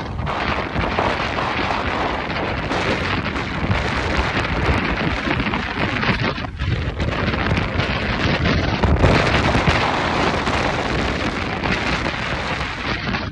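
Wind buffeting the microphone of a phone carried on a moving motorcycle: a loud, dense rushing noise that surges and eases.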